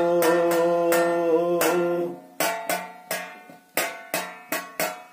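A man's voice holds a long sung note over strikes on a stainless steel plate (thali) beaten by hand as a drum. About two seconds in the voice stops, and the plate alone keeps a steady beat of about three strikes a second, each with a brief metallic ring.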